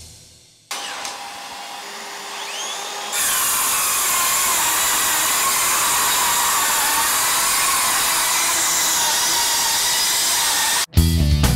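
Makita XSH04 18V brushless sub-compact circular saw, fitted with a 6-1/2-inch Diablo 24-tooth framing blade, cutting steadily through stacked sheet boards for about seven and a half seconds. A quieter steady whir comes first, and the saw's sound jumps up about three seconds in. The sound cuts off abruptly near the end, and music comes in.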